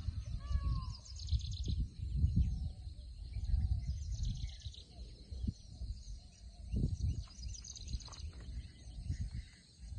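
Birds chirping and calling, with short gliding calls in the first second and bursts of high chirps recurring every couple of seconds, over a low, gusty rumble of wind on the microphone.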